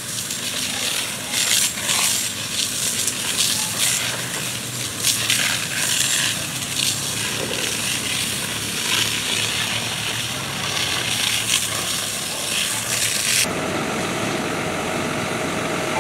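Fire-hose water spraying onto smouldering barn wreckage, a loud hiss broken by irregular crackles as the water hits the hot embers. About 13 seconds in it cuts abruptly to a steadier, lower noise.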